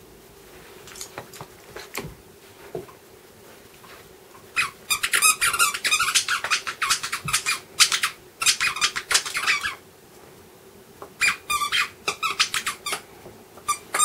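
A dog's plush squeaky toy squeaking in rapid runs as a corgi shakes and chews it. After a few soft knocks, dense bursts of fast squeaks start about four and a half seconds in, stop for about a second near the ten-second mark, then start again and go on to the end.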